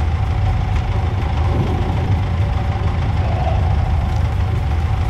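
Benelli TRK 502X's parallel-twin engine idling steadily while the motorcycle stands still.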